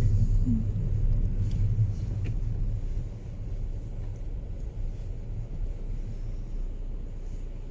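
Low, steady rumble of a motor vehicle running, which drops in level after about three seconds.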